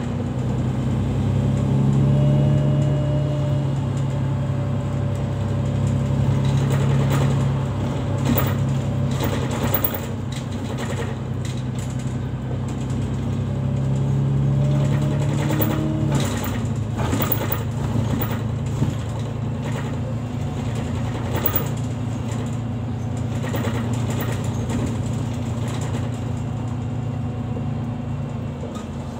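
City bus engine and drivetrain running as the bus drives along, heard from inside the passenger cabin, with short rattling clicks from the interior in the middle. The engine note changes about halfway through and the sound gets a little quieter near the end.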